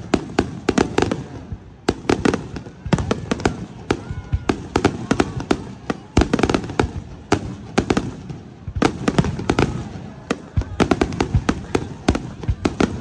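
Aerial fireworks shells bursting: quick volleys of sharp bangs and crackles, with brief lulls between the volleys.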